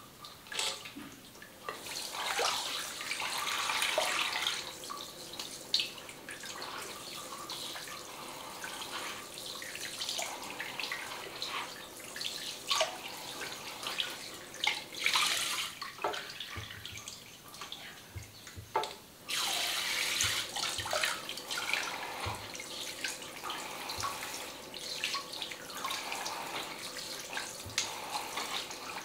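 Water spraying from a handheld shower head onto hair and splashing into a shampoo basin, its rush rising and falling as the spray moves, with a brief break about nineteen seconds in.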